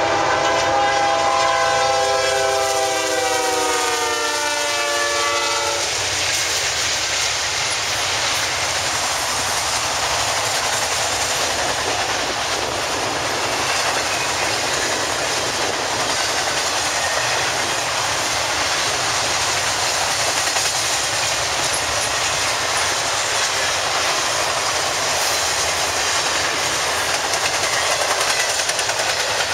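Diesel freight locomotive blowing its multi-chime air horn for a grade crossing for about six seconds, the chord dropping slightly in pitch as it passes. This is followed by the steady rolling noise and clickety-clack of a long intermodal train of highway trailers on flatcars going by.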